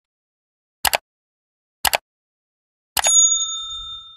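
Subscribe-button animation sound effects: two short mouse clicks about a second apart, then a third click with a bright notification-bell ding that rings out and fades over about a second.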